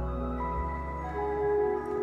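Gentle ambient background music: slow, held notes layered over a low bass note, with a new note coming in about every second.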